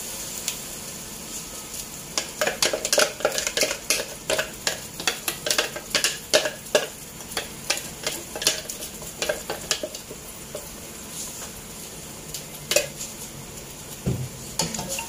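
Blended chilli-and-spice paste sizzling in hot oil in a nonstick wok while a wooden spatula stirs it. The spatula scrapes and knocks against the pan about two or three times a second for several seconds, then only now and then. This is the rendang paste being fried until its oil separates.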